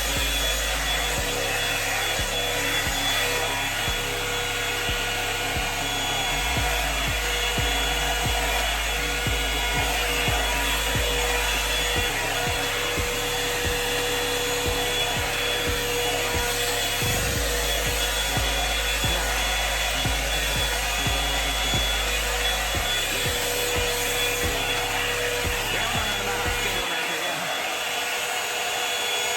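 Hand-held hair dryer running steadily: a continuous rush of air with a faint steady whine.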